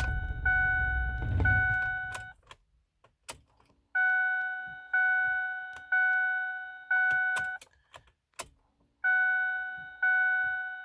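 Ford Super Duty cab warning chime dinging about once a second in three runs, with short pauses between them. A low rumble sits under the first couple of seconds.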